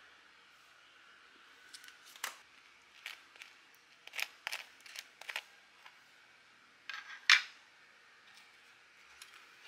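A utensil spreading sauce over a crisp toasted bun: a run of short, dry scratches on the toast. About seven seconds in comes a louder scrape and click, the loudest sound, as the sandwich is handled.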